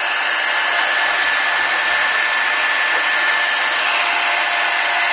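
Handheld hot-air blower running steadily, a continuous rushing of air with a faint high whine, heating the iPhone 5's home button and power-connector area to soften the adhesive holding them.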